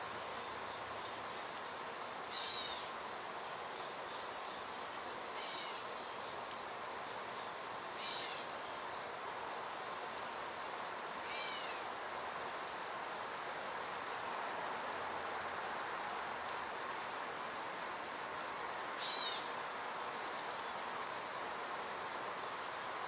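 Steady high-pitched chorus of singing insects with a fast pulsing shimmer, and a faint falling chirp every few seconds.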